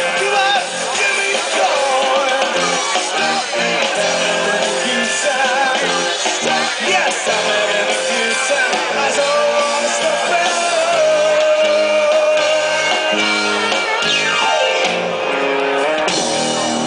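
Rock band playing live: a singer over guitars, with a pitch sliding down steeply about fourteen seconds in.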